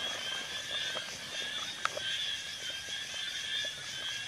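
A steady high chorus of insects, with a few faint clicks and one sharper click near the middle.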